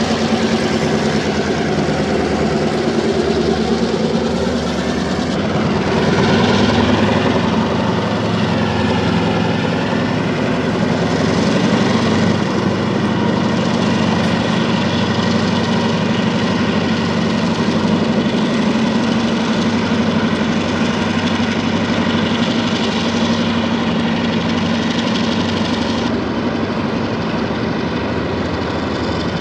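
Three EMD four-axle Geep diesel locomotives with EMD 645 engines working hard under load, lugging a heavy train up a stiff grade: a loud, steady engine drone with the rumble of the train rolling along behind.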